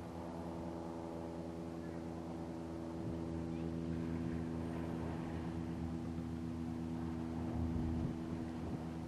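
Steady engine hum, even in pitch and level throughout, with a few faint bumps.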